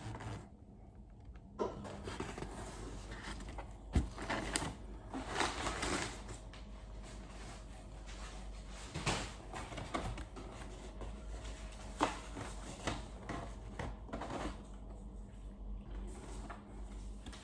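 Packaging being handled during unboxing: scattered rustling and light knocks and clicks of paper, plastic and cardboard.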